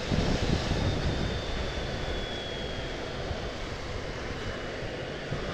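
Motorcycle at speed on a wet motorway: a steady rush of wind and tyre noise over the engine's drone, a little louder in the first second.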